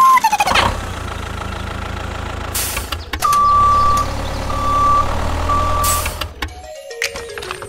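Heavy-vehicle engine running steadily, matched to a toy tractor towing a brick trailer, with a reversing alarm beeping three times midway and two short air-brake hisses. It opens with a short rising tone, and the engine cuts off about a second before the end.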